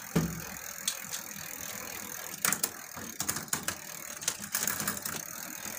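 Bicycle chain running through a newly adjusted rear derailleur and 7-speed freewheel as the rear wheel spins, with a low knock just after the start and irregular clicking and ticking throughout; the gears are now shifting easily.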